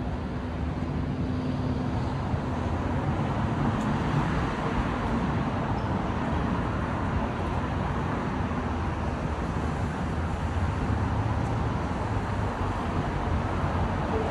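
Steady city street traffic: a continuous wash of car engines and tyre noise with a low engine hum underneath.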